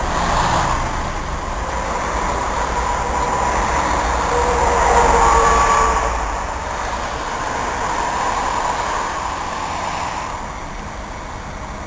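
Solaris Urbino 8.6 midibus's diesel engine running and pulling away from the stop, with a whine that is loudest about five seconds in and fading after about ten seconds.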